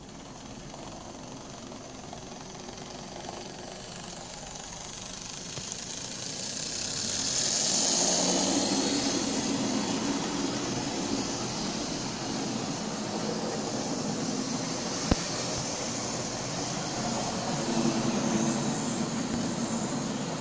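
Lima model Class 40 diesel locomotive running on a model railway, its small electric motor whirring and its wheels and those of the vans it hauls rattling along the track. The sound swells as the train passes close, loudest about eight seconds in and again near the end, with a single sharp click about fifteen seconds in.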